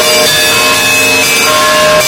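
Russian Orthodox monastery bells ringing together: many bells of different pitches are struck in quick succession, so their ringing tones overlap into one continuous peal.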